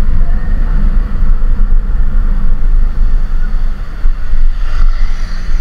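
Motor scooter on the move: heavy wind rumble on the microphone over the engine and road noise, rough and uneven throughout.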